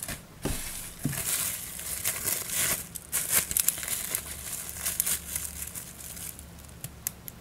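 Clear plastic wrapping crinkling and rustling in the hands as a small reel part is unwrapped, an irregular crackle with many small clicks.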